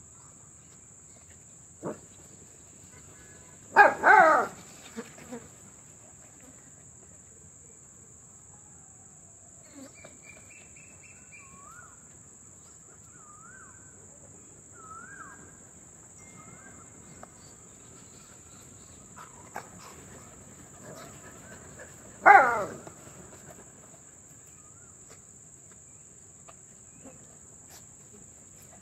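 Dogs at play giving two short yelps, about four seconds in and again near twenty-two seconds, each falling in pitch, over the steady high chirring of crickets. A few faint short whistling notes come between them.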